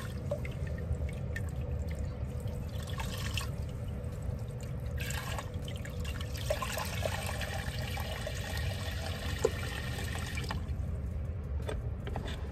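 Kitchen faucet running into a small sink while hands are rinsed under it, over a steady low hum. The water system is making a little noise, which the owner takes as a sign that her water might be running low. The running water stops about ten and a half seconds in.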